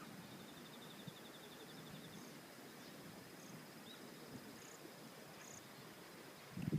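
Faint outdoor ambience with insects singing: a rapid pulsing trill for about two seconds at the start over a steady high thin tone, with a few short high chirps. A low thump near the end.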